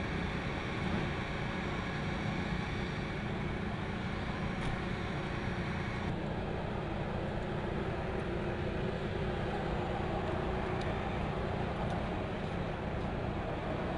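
Steady mechanical drone of an airfield flight line, aircraft and ground power equipment running, with a shift in its tone about six seconds in.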